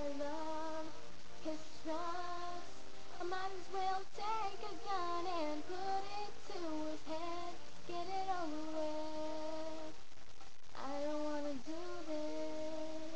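A young woman singing a slow melody, with long held notes that slide up and down and a short break for breath about ten seconds in.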